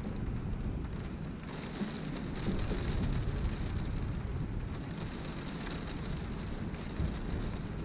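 Wind-driven rain beating against a window pane, a steady hiss over a deep low rumble. The rain's patter grows louder twice, for a second or two each time, then eases.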